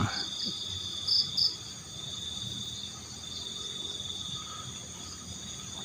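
Night insect chorus: several insects trill steadily at different high pitches, one of them pulsing, with soft rustling about a second in.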